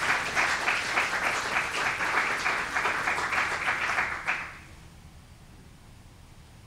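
Audience applauding, a dense patter of many hands clapping that stops about four seconds in, leaving quiet room tone.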